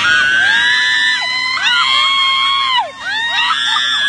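Several banana boat riders screaming together in long, high-pitched, overlapping shrieks, in waves with a short break about three seconds in.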